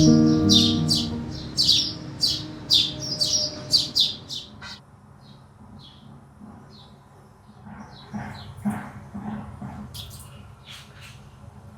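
A small bird chirping in a quick series of short, high calls about twice a second, loudest in the first few seconds and then fainter and more scattered, over the tail of soft background music fading out.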